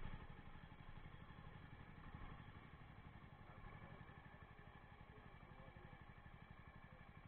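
Jawa 42 motorcycle's single-cylinder engine running steadily, heard faintly as a low, even pulsing.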